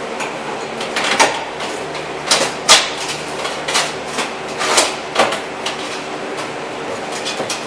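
Irregular sharp clicks and knocks from hand work on a car's front end as the hood release cable and pull wire are fed through, about a dozen spread unevenly. A steady shop hum runs underneath.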